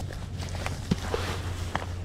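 A caught salmon being handled and shifted about on dry leaves and dirt: a sharp click, then a few scattered knocks and rustles, over a steady low hum.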